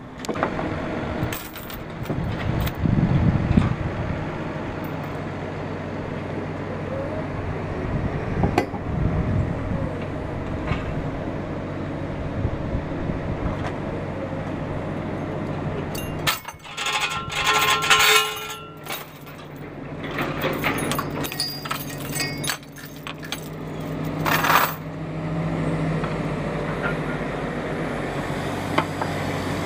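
An engine idling steadily, with scattered metal clinks and clanks. A little past the middle come several seconds of harsh, ringing metal noise.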